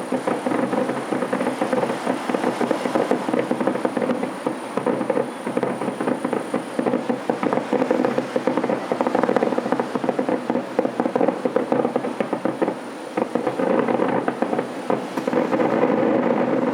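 Distant aerial fireworks going off in a rapid, continuous barrage, the many reports blending into a crackling rumble that eases briefly and then builds again near the end.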